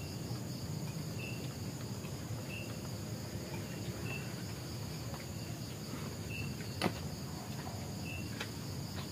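A steady chorus of night insects: two continuous high trills, with a short chirp repeated every second or two. A single sharp click comes about two-thirds of the way through.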